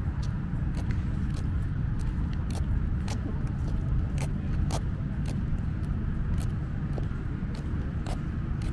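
Outdoor wind rumbling on the microphone, steady and low, with light ticks about twice a second on top.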